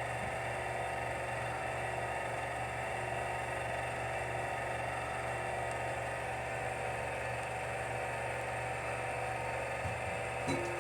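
Steady machine whir and hum, unchanging, with a low hum under several thin high whining tones; a faint brief sound near the end.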